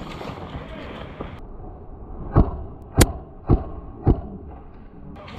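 Four sharp single shots from an airsoft replica, a little over half a second apart, the third the loudest and crispest, heard over a muffled background.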